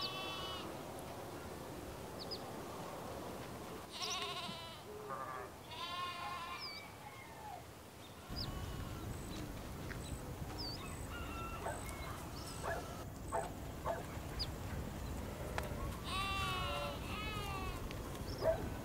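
Goats bleating: several wavering calls, near the start and about four, six and sixteen seconds in, over steady outdoor background noise that grows louder about a third of the way through.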